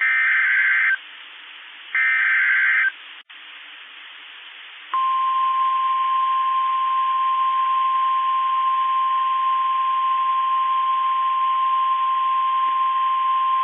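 Emergency Alert System signal from NOAA Weather Radio: the last two of three buzzing SAME data-header bursts, each about a second long, then from about five seconds in a steady single-pitch 1050 Hz warning alarm tone. The header and tone announce a new warning, here a tornado warning.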